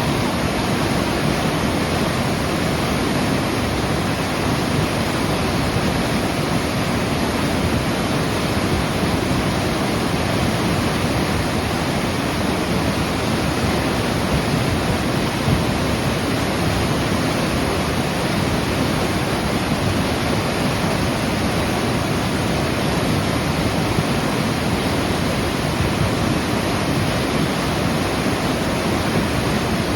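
River in flood, swollen by heavy rain and over its banks, giving a loud, steady rush of water.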